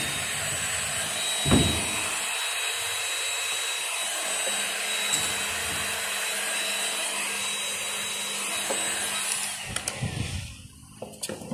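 Electric heat gun (hot air gun) blowing steadily, a fan hiss with a thin high whine, heating a plastic water-hose fitting to soften it for removal. A single thump comes about a second and a half in. The gun winds down and stops about ten seconds in.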